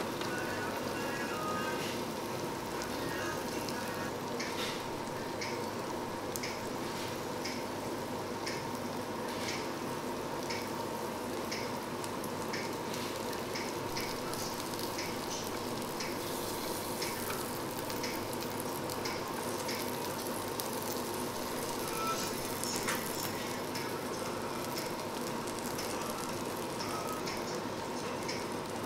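Food sizzling on a tabletop barbecue grill: a steady hiss with scattered crackles throughout.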